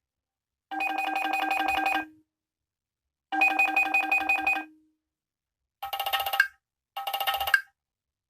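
Nokia 6 ringtone playing: a fast-pulsing electronic tone in four bursts with gaps between, two of about a second and a half and then two shorter ones.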